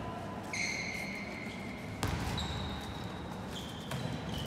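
Sports shoes squeaking on a hall floor, four short high squeals, with two sharp thuds about two and four seconds in, over the murmur of a large indoor hall.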